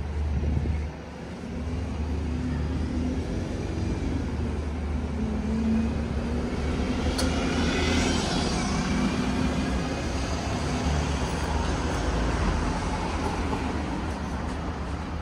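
Street traffic: motor vehicle engines running close by over a steady low rumble, with a vehicle passing around the middle.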